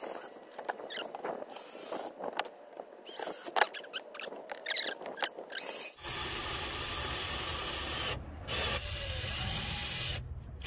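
A run of small clicks and knocks, then a cordless drill boring pilot holes into a plywood bed platform: the drill runs steadily for about two seconds, stops briefly, and runs again for about two seconds.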